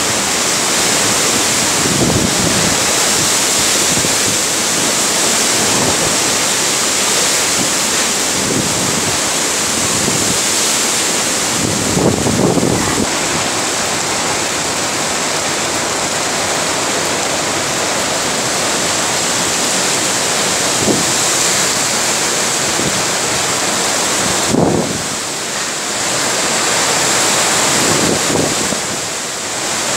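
Cyclone-force wind and heavy rain blowing through trees, a loud steady rushing noise, with gusts buffeting the microphone several times and a brief lull near the end.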